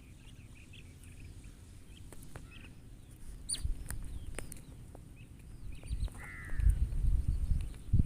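Low rustling and thumps of hands working dough bait onto a multi-hook fishing rig close to the microphone, loudest near the end, with a few short bird calls in the background.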